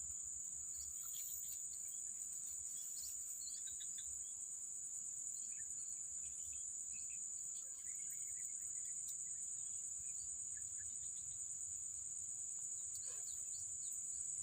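A steady, unbroken high-pitched insect drone from the surrounding swamp, with a few faint short chirps scattered over it.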